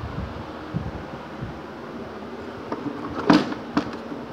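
Plastic air filter box of a 2007 Mercedes-Benz S550 being pulled up out of the engine bay, with a sharp plastic clatter about three seconds in and a few lighter clicks near the end, over a steady background hum.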